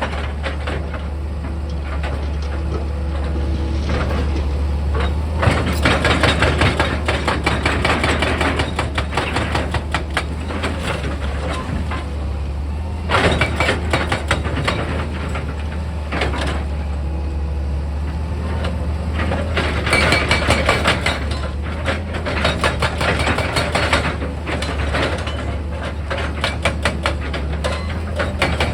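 Excavator engine running steadily at a low hum, with four spells of dense crunching and rattling of earth and rock.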